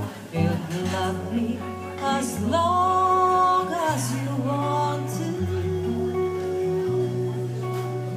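A woman singing with live acoustic guitar accompaniment; about two and a half seconds in she holds one long note for over a second.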